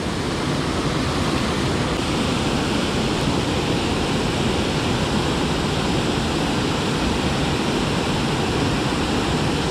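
Water rushing over a low river dam spillway and through the white water below it: a steady, even rush with no breaks.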